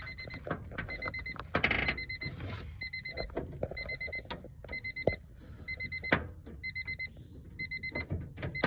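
A car's warning chime beeping in short pulsed bursts, about one burst every 0.8 s, over scattered clicks and knocks from the door latch and handle rod being worked.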